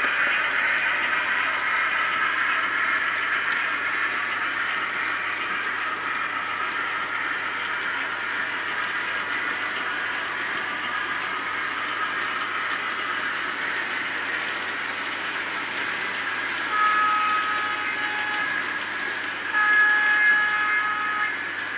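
H0-scale model iron ore train rolling over a layout bridge: a steady rattle of small wheels on track that slowly fades as it moves away. Near the end a horn tone sounds twice, first briefly, then longer and broken into short blasts.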